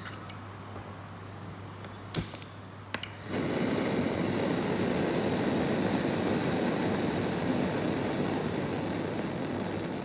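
Bunsen burner being lit: two sharp clicks about a second apart, then the gas catches a little after three seconds in and the flame burns with a steady rushing noise.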